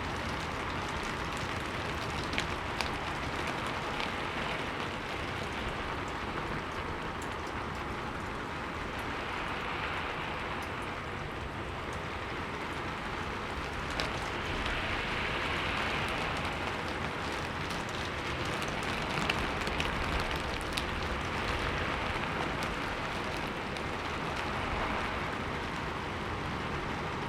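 Steady rain falling, an even hiss that swells and eases gently, with scattered louder drops ticking through it.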